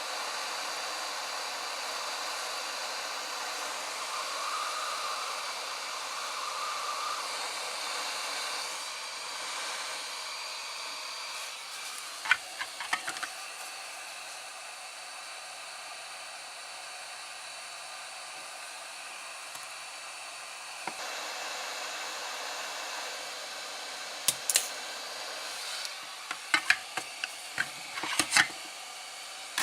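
8858 hot air rework station blowing a steady rush of air while reflowing solder paste on a USB connector's pins. Sharp little clicks of a hand tool come a few at a time about halfway through and again in a cluster near the end.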